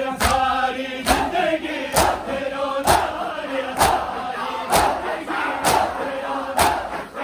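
A group of male mourners chanting a noha in unison, with a loud, even chest-beat (matam) from many hands striking together about once a second.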